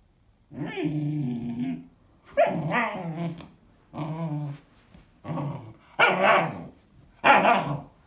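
Standard poodle puppy vocalizing in six separate calls, the first the longest at over a second. This is the restless "talking" of an overtired puppy kept up past bedtime.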